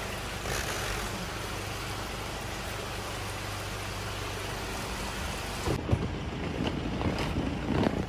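Steady vehicle ride noise, a low engine hum under road rush, that changes abruptly about six seconds in to a rougher, uneven rumble with a few knocks.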